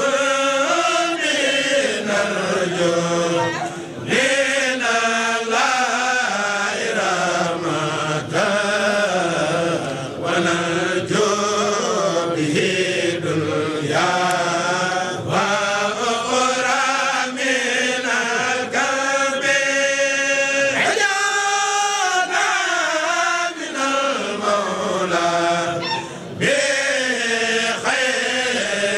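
Voices chanting an Arabic devotional poem, a Mouride khassida, in long sliding phrases with short breaks between them.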